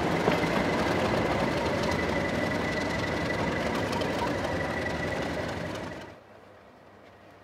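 English Electric Class 37 diesel locomotive's V12 engine running as the locomotive pulls away, with a steady high turbocharger whistle over the engine note, slowly fading as it recedes. About six seconds in, the sound cuts off abruptly to faint background.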